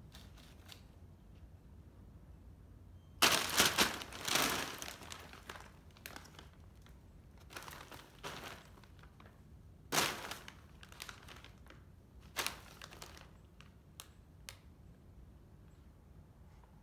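Plastic bag crinkling and rustling as cats wriggle in it and paw at it. It comes in bursts: a longest one about three seconds in, then shorter ones near the middle, and a couple of light ticks after.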